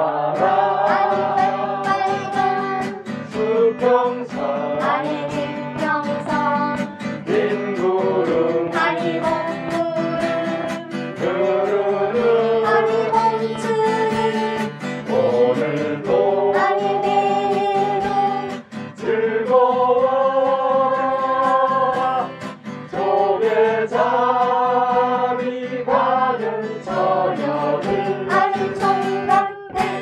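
A voice singing a slow song with held, wavering notes over guitar accompaniment.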